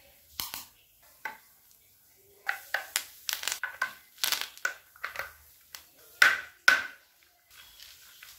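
Sharp plastic clicks and knocks as chair casters are pushed and snapped into the leg sockets of a plastic five-star office chair base. The two loudest knocks come half a second apart a little after six seconds in.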